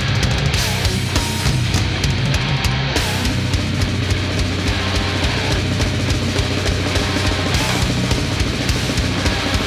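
Loud heavy-metal music, an instrumental stretch with a pounding drum kit and guitars and no vocals.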